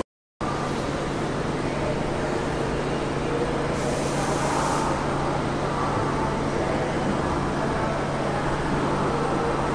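Steady railway-station ambience: the rumble of distant trains and city traffic with a steady low hum, and a brief hiss about four seconds in. The sound starts after a short gap.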